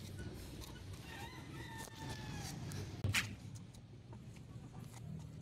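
A rooster crowing once, faint, a single call lasting about a second and a half, over a steady low rumble. About three seconds in, a single sharp knock is the loudest sound.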